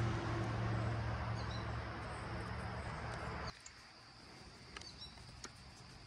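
A steady low engine hum that cuts off abruptly about three and a half seconds in. After it come a few faint clicks and short high chirps.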